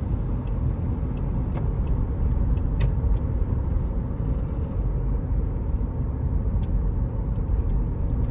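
Car engine and road noise while driving: a steady low rumble, with a few faint clicks.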